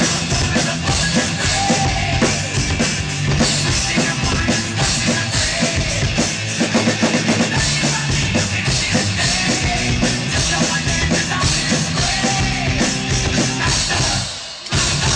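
Drum kit with cymbals played in a rock groove along with rock music. The music stops briefly near the end before the drums come back in.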